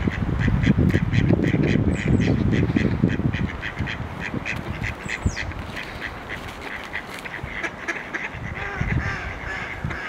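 Mallards quacking in a rapid run of short calls, about three or four a second. A low rumble is loudest over the first three seconds, and a small bird gives a high, falling chirp a few times.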